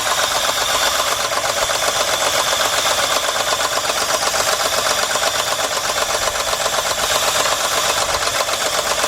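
A 2003 Jeep Liberty's 3.7-litre V6 running rough at idle with a fast, steady clatter: the engine has a misfire.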